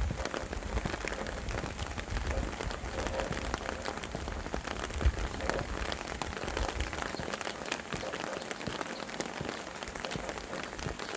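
Steady rain falling, a dense even hiss full of separate drop ticks, with now and then a low rumble of wind gusting.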